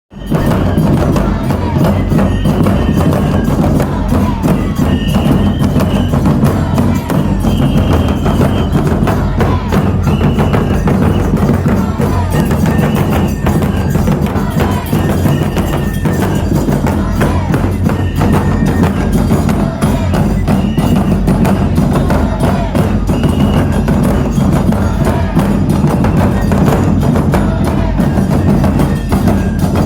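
Neputa festival hayashi music: taiko drums beating steadily, with short high flute phrases over them.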